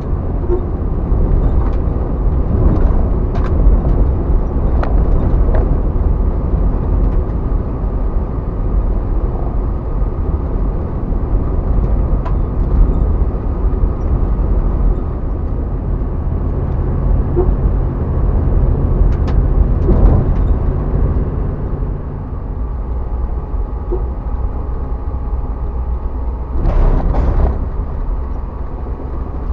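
1977 Jeep Cherokee driving on a gravel road, heard from inside the cab: a steady engine and tyre drone with scattered clicks and ticks. A brief louder rush of noise comes near the end.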